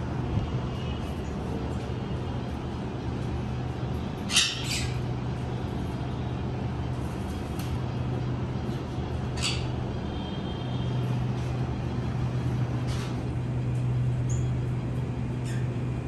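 A steady low hum with a few short, sharp parrot calls over it: the loudest about four seconds in, others near nine and thirteen seconds.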